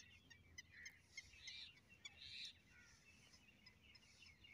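Faint bird calls and chirps in the background, with short high chirps scattered through and two slightly longer calls near the middle; otherwise near quiet.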